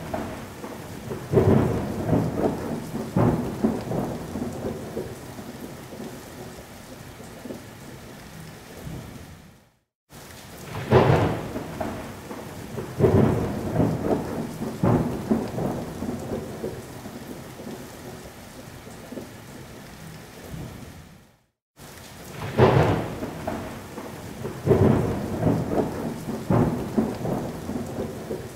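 Thunderstorm: steady rain with loud thunderclaps and rolling rumbles. The same stretch of sound of roughly eleven seconds repeats as a loop, cutting out briefly twice and starting over each time with a loud crack of thunder.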